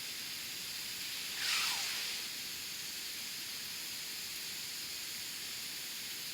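Open wood campfire burning with a steady hiss. About one and a half seconds in, a louder hiss lasting about half a second falls in pitch.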